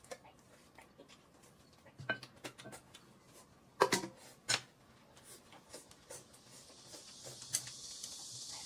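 Scattered soft clicks and knocks of tableware handling, with louder knocks about four seconds in as a stainless steel basin is set down upside down over a plate. A steady high hiss comes in near the end.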